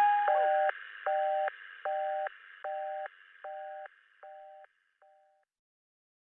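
Telephone busy signal: two steady tones pulsing on and off about every 0.8 s, seven beeps growing fainter until they stop about five seconds in. It sounds higher and faster than a real line, sped up with the rest of the nightcore track.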